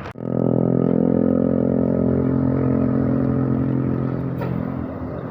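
Large bus's diesel engine running close by at a steady speed, with no rise or fall in pitch. It starts abruptly just after the beginning and eases off slightly near the end.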